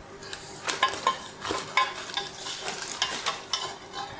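Sheet-metal part being handled at a manual press brake: a string of irregular light clicks and knocks of metal on metal, with crinkling of a plastic sheet.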